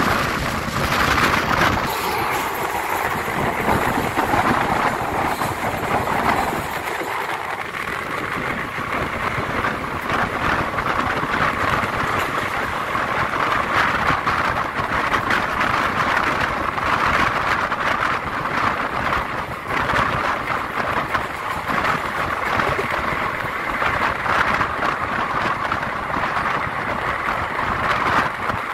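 Electric-hauled passenger express running along the track, heard from on board: a steady rumble and rush of wheels on rails with a fine continuous clatter.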